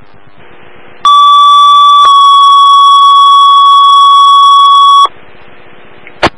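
Fire-department two-tone paging alert over a scanner radio: a loud steady tone for about a second, then a slightly lower tone held for about three seconds that cuts off abruptly, sent to alert the engine and rescue crews before a dispatch. Radio hiss comes before and after, with a sharp squelch click near the end.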